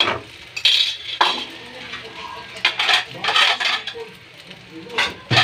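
Metal utensils clinking and scraping against cookware: sharp knocks near the start, about a second in and a few near the end, with scraping in between.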